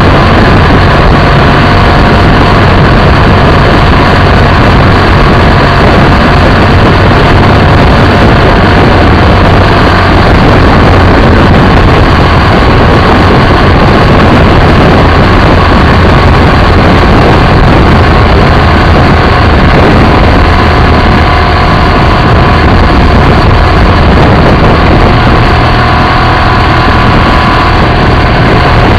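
BMW F800ST motorcycle's parallel-twin engine running steadily while riding at road speed, heard from a camera mounted on the bike, mixed with heavy wind and road noise. Very loud and even, with no gear changes or sharp revs standing out.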